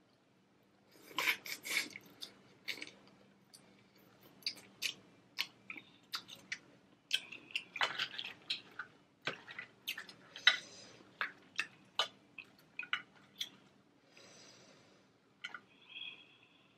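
Boiled crawfish being cracked and peeled by hand, with wet eating sounds: an irregular run of crisp shell cracks and clicks, beginning about a second in.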